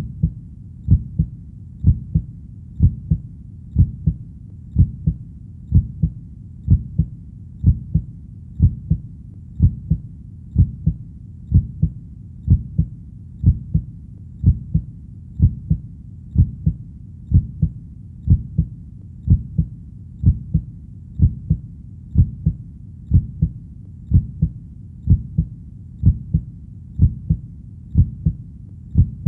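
Heartbeat, a low double thump repeating steadily at about one beat a second.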